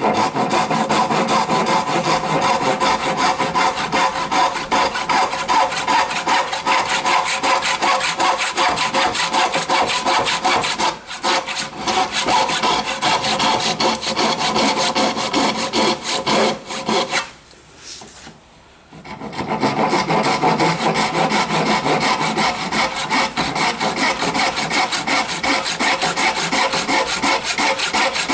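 Brass-backed backsaw cutting down a line in a wooden baluster by hand, a steady run of back-and-forth rasping strokes. The strokes break off for about two seconds roughly two-thirds of the way through, then carry on.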